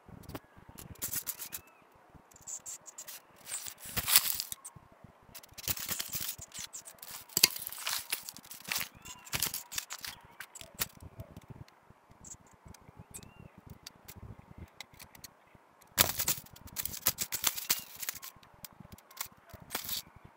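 Thin dry sticks of a hand-built stick bird trap (arapuca) clicking, crackling and scraping against one another and the dirt as hands fit and press them into place. The noise comes in irregular bursts, loudest about four seconds in and again around sixteen seconds in.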